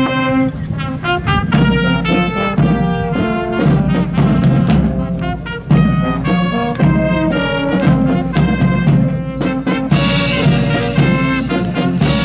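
Brass band music playing in a swing style: trumpets and trombones over a steady beat, with the melody moving note to note.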